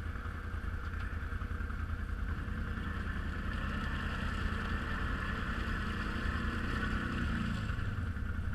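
BRP ATV recovery: an electric winch whines steadily while the quad's engine runs under it. The engine's drone rises in pitch in the middle and falls away near the end.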